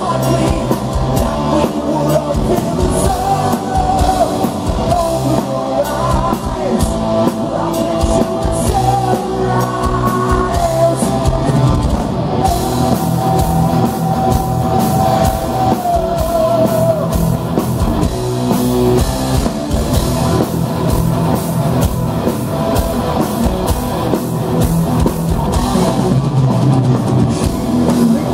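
Power metal band playing live: distorted electric guitars and a pounding drum kit under a male singer's vocals, with long held and gliding notes in the melody. Heard loud and full from the audience floor.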